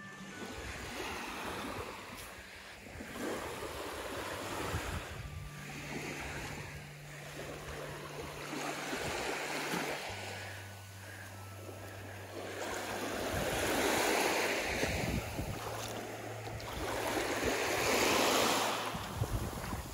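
Small sea waves breaking and washing up a sandy beach, surging and ebbing every few seconds and getting louder toward the end as the shoreline is reached, with some wind on the microphone.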